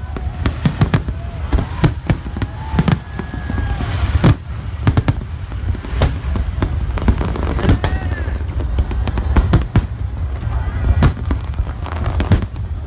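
Large aerial fireworks display: many sharp, irregular bangs and cracks, several a second at times, over a steady low rumble.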